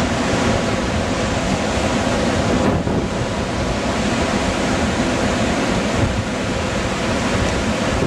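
Wind buffeting the camcorder microphone in gusts over the steady rush of surf breaking on the beach.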